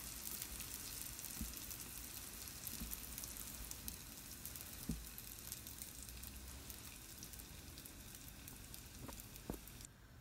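Hot oil sizzling quietly around a ring of sfenj (Moroccan yeast-dough doughnut) frying in a pan, with fine crackling and a few faint knocks. The sizzling cuts off abruptly near the end.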